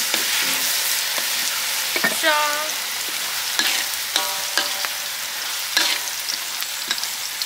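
Metal ladle stirring and scraping chili-paste sauce in a steel wok over a fire: a steady sizzle with repeated clinks of the ladle against the wok.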